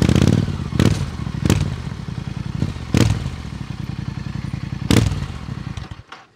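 Royal Enfield Super Meteor 650's parallel-twin engine running through aftermarket JD Custom slim twin mufflers, with four brief loud revs from throttle blips. The engine is switched off about six seconds in and the sound stops abruptly.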